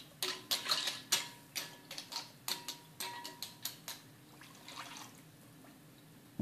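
Metal spoon clinking and scraping against a pot of raw pasta while water is poured in from a metal jug: a run of irregular sharp clinks with brief ringing, thinning out after about five seconds.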